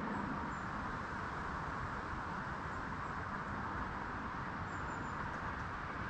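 Steady outdoor background noise, an even hiss with some low rumble, with a few faint, brief high chirps.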